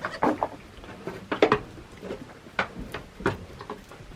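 A series of irregular knocks and clatters, about seven in four seconds, with no steady tone between them.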